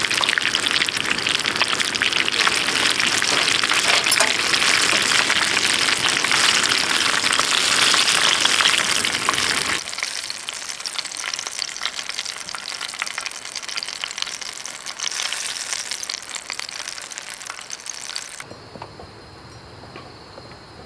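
Food sizzling and crackling as it fries in a pan, loud for about ten seconds, then quieter, and fading much lower near the end.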